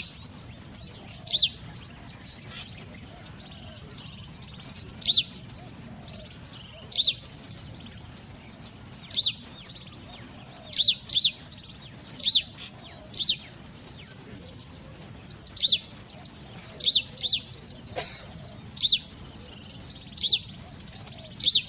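A bird calling with short, sharp, high-pitched chirps, about fifteen of them, one every second or two at an uneven pace.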